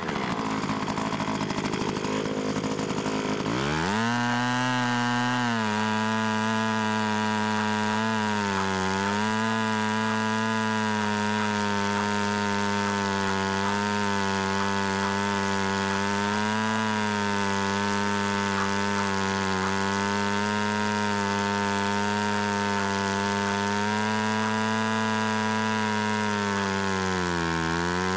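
A motorized scooter's small petrol engine starts up about four seconds in, then runs steadily with a chainsaw-like buzz, its speed dipping briefly twice.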